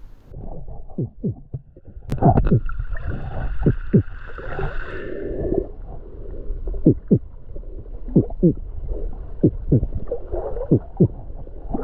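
Underwater sound picked up by a snorkeller's camera: muffled gurgling and knocking from the swimmer's own movement and breathing. Between about two and six seconds in, a muffled voice-like noise that the snorkeller makes is held for a few seconds.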